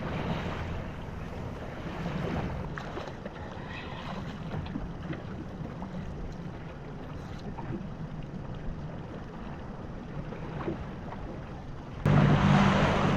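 Fishing boat's engine running steadily under wind and water noise. About twelve seconds in it abruptly becomes much louder.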